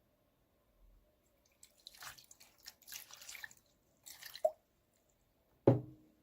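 Toy packaging being handled up close: a few seconds of crackly plastic rustling ending in a short drip-like plop, then one sharp knock near the end.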